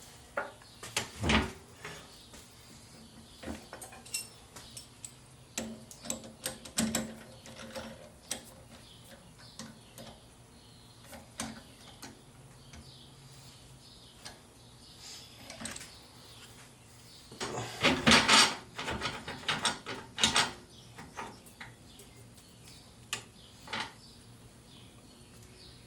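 Irregular clicks, clanks and knocks of metal and wood being handled, as the lathe and the sassafras blank are set up. A denser burst of clatter comes about two thirds of the way through. The lathe is not running.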